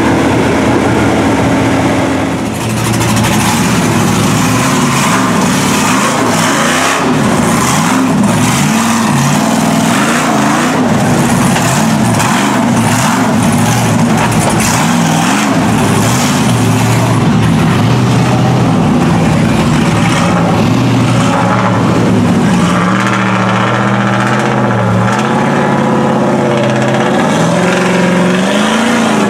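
Engines of lifted mud trucks revving up and down as they drive through deep floodwater one after another, their big tyres churning and throwing water.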